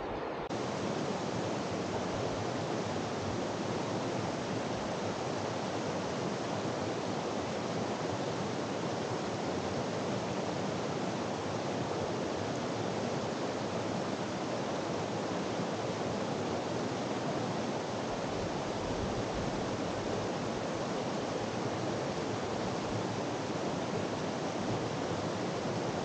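Shallow stream rapids: water rushing over rocks in a steady, even rush.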